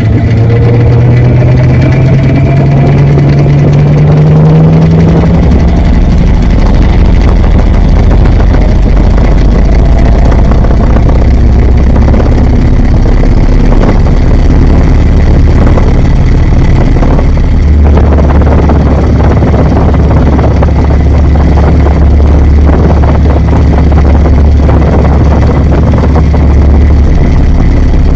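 Washing machine running, heard from inside the drum: a loud, steady mechanical drone. Its low motor tone rises in pitch over the first five seconds, then holds steady.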